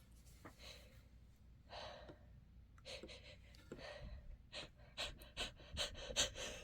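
A person sniffing through an itchy, runny nose: a few faint sniffs and breaths, then, from about four and a half seconds in, a quickening run of short, sharp intakes of breath that grow louder. This is the catching breath that builds up to a sneeze.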